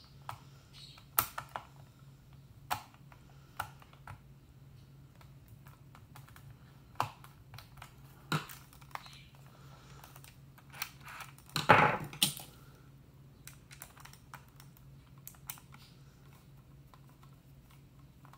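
Scattered clicks and taps of a plastic Trimline telephone handset being handled and a screwdriver working at a screw that won't go in, with a louder clatter about twelve seconds in.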